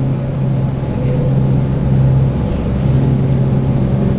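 An engine running steadily: a continuous low, even drone.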